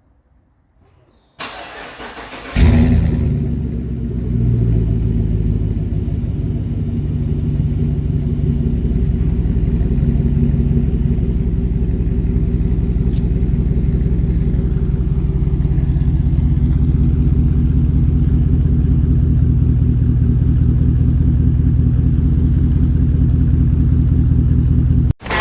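Chevrolet truck engine with its muffler deleted starting up: brief cranking, then it catches with a loud flare about two and a half seconds in. It settles within a couple of seconds into a steady idle through the open exhaust, which cuts off suddenly near the end.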